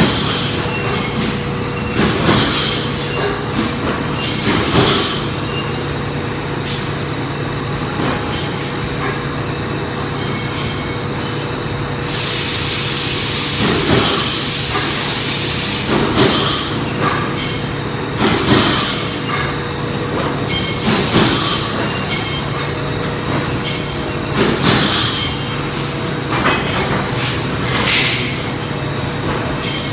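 CNC plasma cutting machine at work: a steady electrical hum under irregular hissing and clattering bursts, with a louder continuous hiss lasting about four seconds midway.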